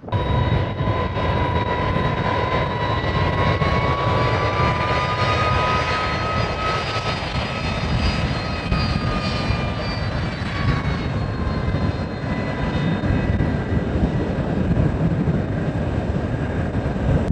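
Boeing 747 turbofan engines at takeoff power: a steady low rumble with a high engine whine above it that bends up slightly around the middle and settles back.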